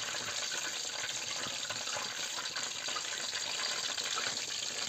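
Sausages wrapped in dough frying in hot oil in a pan: a steady crackling sizzle.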